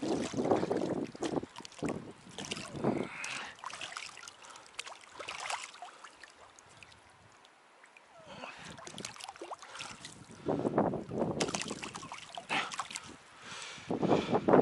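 Shallow water splashing in irregular bursts as a caught lenok thrashes against the fisherman's hands, with quieter stretches between the bursts.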